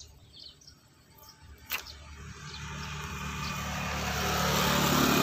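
A motor vehicle's engine running, growing steadily louder as it approaches, after a single sharp click about two seconds in.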